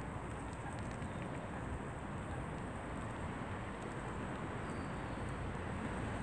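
Steady outdoor background rumble and hiss, with a few faint ticks about a second in.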